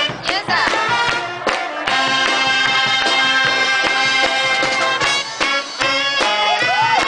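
Marching band of saxophones, trumpets, trombones and marching drums playing live, with drum strikes early on and a long held chord through the middle.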